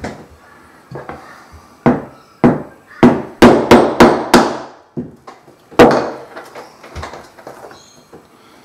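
A plastic-faced mallet striking a steel hole punch to cut holes through a leather belt: about a dozen sharp knocks, coming quickest and loudest between about three and four and a half seconds in.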